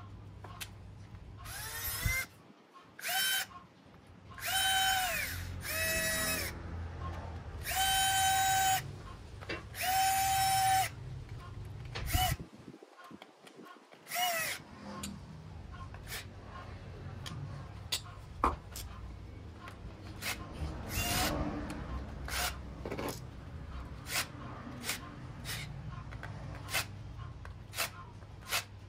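A small electric motor run in about seven short bursts, each a high whine that rises in pitch as it starts and drops as it stops. After about halfway, a string of sharp, irregular clicks and taps follows.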